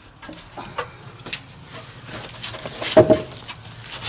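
Footsteps and knocks on debris and a wooden floor, with a louder knock and a short creaking squeak about three seconds in.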